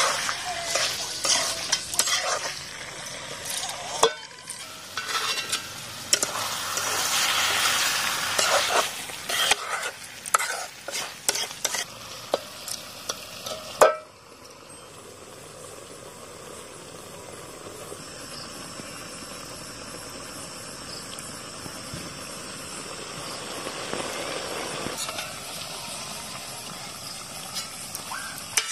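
Chicken curry frying in oil in a steel kadhai, stirred and scraped with a spoon, with sharp knocks of the spoon against the pan. About halfway through it settles into a steady sizzle.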